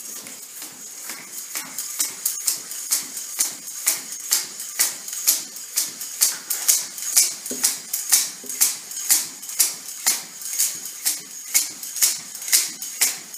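Hand pump of a Donway pneumatic traction splint being worked in quick, regular strokes, about three a second, each stroke a short hissing puff of air. The pumping extends the splint and pulls traction on the leg, bringing the pressure gauge up into the green.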